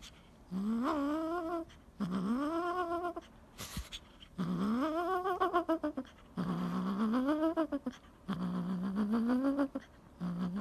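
A kitten meowing over and over: six drawn-out, fairly low meows about a second apart, each rising in pitch and most falling away at the end.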